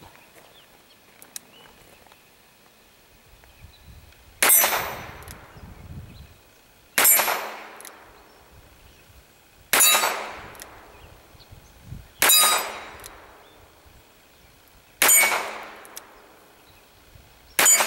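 Six .22 LR shots from a Smith & Wesson Model 34-1 revolver, one about every two and a half seconds. Each shot is followed by the ringing clang of a steel target being hit.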